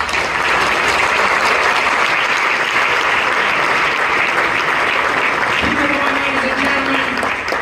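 A large audience applauding steadily, dense clapping at the close of a talk.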